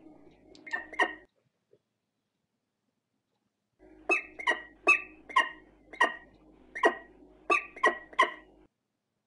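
Falcon calling at the nest box: two quick sharp calls, then after a pause a run of about ten sharp, evenly spaced calls, roughly two a second.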